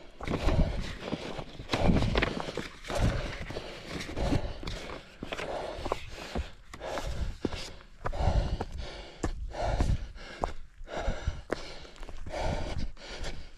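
A runner's footfalls on rough ground with heavy breathing, in an uneven rhythm of thuds and breaths.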